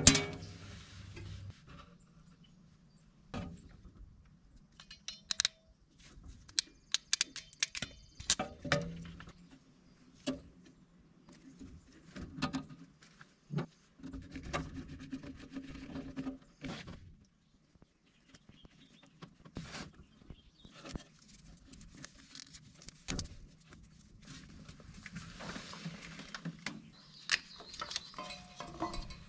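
Scattered light clicks, taps and small metallic rattles of hand work on wiring: a screwdriver and wire terminals being handled against a painted steel panel.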